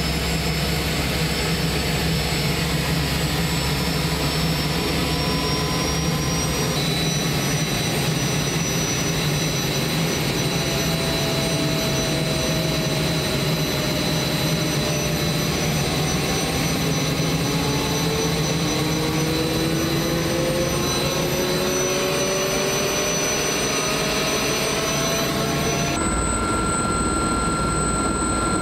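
Cabin sound of an Aérospatiale Gazelle helicopter: its Astazou turboshaft whines steadily over the low drone of the rotor, and the mix of tones changes abruptly about two and a half seconds before the end.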